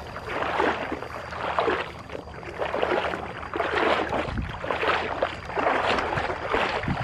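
Footsteps splashing and swishing through shallow muddy water and tall wet grass, about one step a second.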